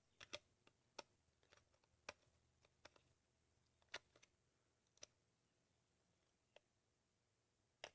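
Near silence with faint, scattered clicks, roughly one a second, from a 9-volt battery and its battery holder being handled and fitted.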